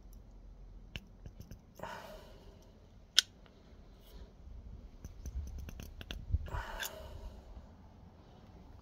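Small metal clicks and scrapes of a ring spanner working a brass temperature sensor tight in an aluminium hose adapter, with one sharp click about three seconds in and handling rustles around it.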